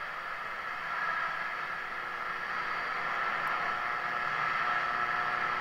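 1940 Stewart Warner Model 13-5U2 tube radio's speaker giving a steady static hiss while tuned to a weak AM broadcast station. The station can now be received after the replacement of a capacitor in the detector and oscillator circuit, which made the set a little more sensitive.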